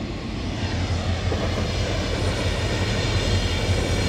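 Approaching Mugunghwa passenger train: a steady low drone from its locomotive with rail noise, growing slightly louder toward the end.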